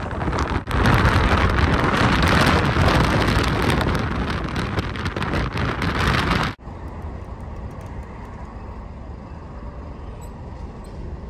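Wind and road noise of riding along a city road: a loud, even rush that cuts off suddenly about six and a half seconds in, giving way to a quieter, steady hum of city traffic.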